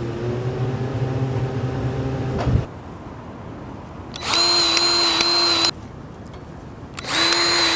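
Powered grease gun motor running in three short runs, pumping grease into the grease fittings on the ends of a tow truck wheel lift's crossbar cylinder. The first run cuts off about two and a half seconds in, a second runs for about a second and a half, and a third starts about seven seconds in.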